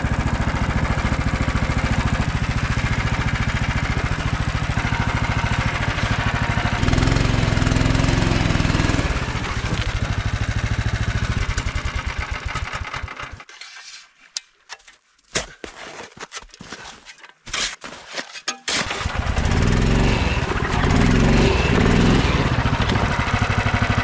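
Snowdog tracked snow sled's small engine running and revving as the machine is heaved around by hand. It dies away about twelve seconds in, a few knocks follow, and it runs and revs again about six seconds later.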